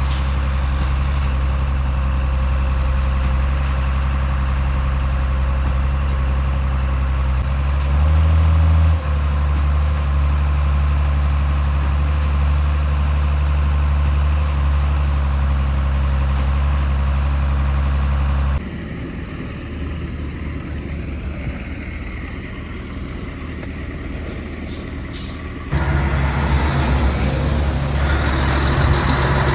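Heavy truck's diesel engine running steadily, with a brief rev about eight seconds in. The sound then cuts abruptly to a quieter, rougher engine passage, and turns loud again near the end.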